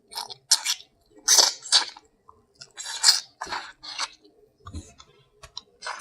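Close-miked wet chewing and mouth smacking of seafood boil food, short bursts coming every half second or so.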